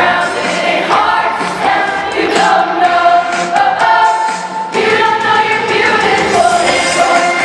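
A show choir singing together, many voices at once.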